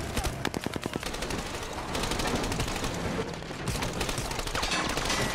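Firefight in a film soundtrack: sustained automatic gunfire, rapid shots overlapping without a break.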